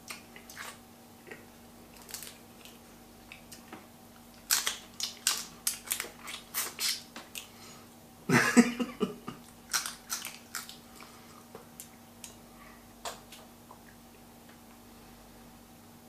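Boiled crayfish shells being cracked and peeled by hand, with chewing: scattered sharp cracks and crunches, bunched in a dense run from about four to seven seconds in, and one louder, longer burst of noise about eight and a half seconds in.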